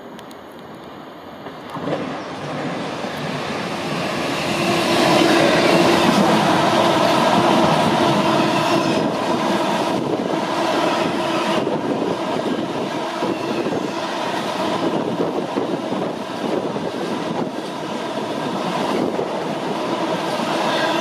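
DB Cargo Class 66 diesel freight train passing close by, its engine and wheels building up over the first few seconds, then a long string of empty flat wagons running by in a steady loud rumble and rattle over the rails.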